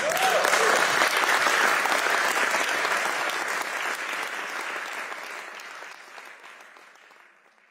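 Theatre audience applauding at the end of a spoken-word poem, starting suddenly and gradually fading away toward the end.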